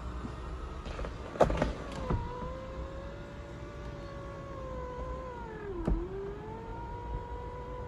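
Electric motor of a Volkswagen Polo 6N Open Air's power folding fabric roof whining steadily as the roof slides back. There is a click about a second and a half in. About six seconds in a second click comes as the pitch dips briefly, then the motor runs on.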